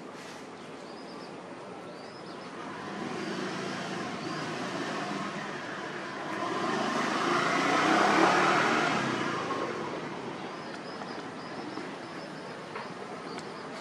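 A passing vehicle's noise that swells and fades, loudest about eight seconds in, with faint bird chirps.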